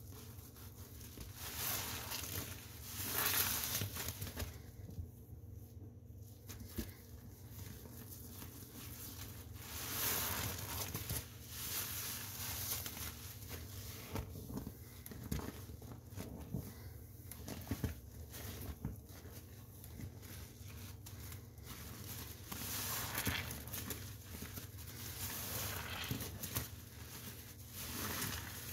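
Soapy sponge being squeezed and worked, giving irregular wet squishes of foam with louder swells every few seconds.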